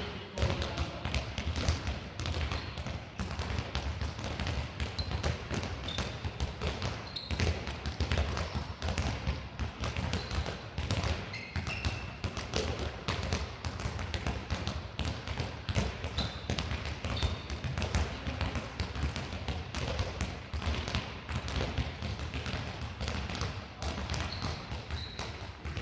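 Handballs bouncing on a sports hall floor and slapping into hands as players pass, catch and dribble, a continuous run of quick knocks. Shoes squeak briefly on the floor now and then.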